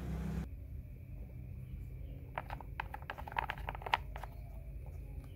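Plastic vent caps of a wet lead-acid car battery being handled and fitted back onto the cells: a cluster of light plastic clicks and ticks in the middle, faint.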